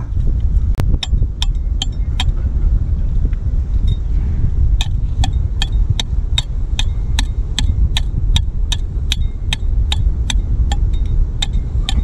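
Small pick hammer tapping on oyster shells and rock to chip wild oysters loose: a few taps at first, then from about five seconds in a steady run of about four light strikes a second. A steady low rumble lies underneath.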